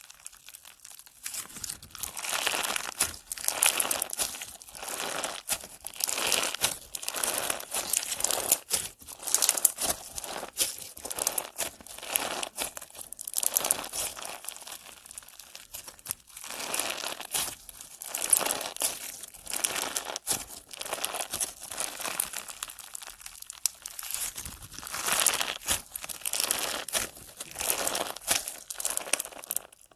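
Slime being squeezed and worked by hand, giving dense crackling and popping in repeated surges every second or two. It stops suddenly at the very end.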